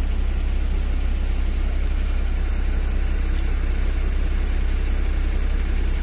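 Engines of parked emergency vehicles idling: a steady low rumble with a faint even hum.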